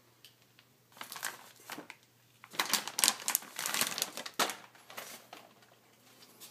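Plastic food bag crinkling on a dog's head as the dog moves about, in two bouts of rustling: a short one about a second in, then a louder, longer one from about two and a half seconds in.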